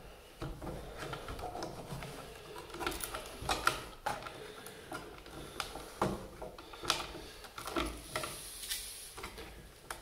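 Irregular light clicks and rustling as stiff 12-gauge Romex wires are bent and folded into an electrical box by hand, with a few sharper clicks among them.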